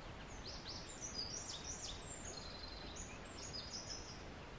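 Small birds chirping in quick, high notes, including a run of short downward-sweeping calls about a second in, over a steady hiss of outdoor background noise.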